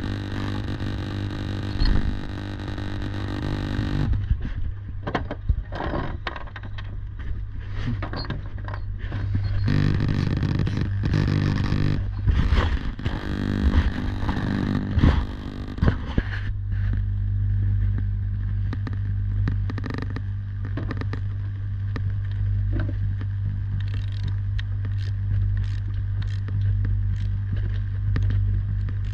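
A steady low hum, with irregular metallic scrapes and clicks over it that are thickest in the middle of the stretch.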